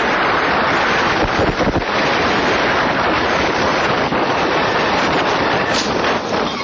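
Loud, steady rush of wind on a phone microphone in a moving car, mixed with road noise.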